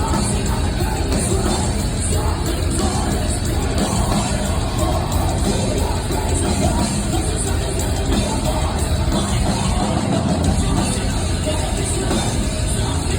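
Live metal band playing loudly and without a break, with a singer's voice over the music.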